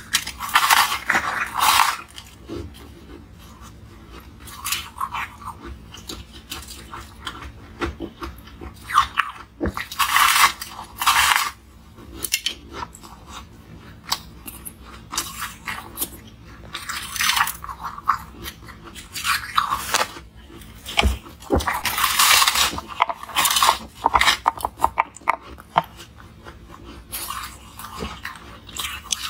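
Frosty block of ice bitten and chewed close to the microphone: loud crunching in clusters a second or two long every few seconds, with small crackles and clicks in between.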